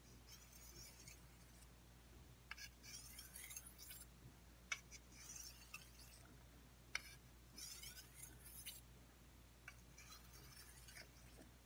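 Stainless steel machete blade drawn along an oiled honing stone in slow, faint strokes, about five of them, each a soft hiss of about a second, with a few sharp ticks of the blade touching the stone.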